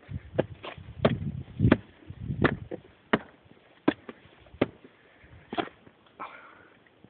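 Footsteps of a hiker climbing rough stone steps, sharp scuffs and knocks at a walking pace that slows after about four seconds. A low rumble on the microphone runs under the first few steps.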